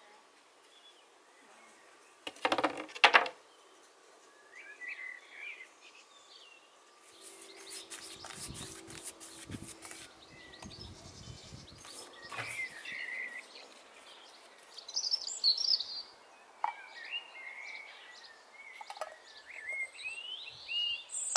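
Garden birds singing in short chirps and trills throughout. A quick cluster of sharp knocks comes about three seconds in and is the loudest sound. Around the middle there is a few seconds of scratchy brushing as a paintbrush is worked across a wooden board.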